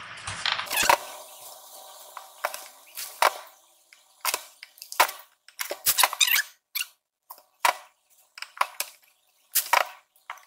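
Scattered sharp clicks and light taps, irregularly spaced, from a small iron being moved, lifted and set down on its heel on a pressing board while a folded fabric strap is handled.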